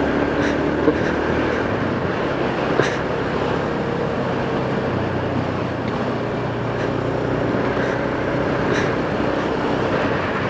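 Motorcycle engine running steadily on the move, with wind and road noise across the microphone and a few short ticks.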